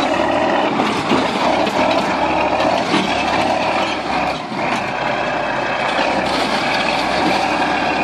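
Chetra crawler bulldozer's diesel engine running steadily under heavy load as the machine crawls up over a snow-covered bank, with mechanical clatter from the running gear.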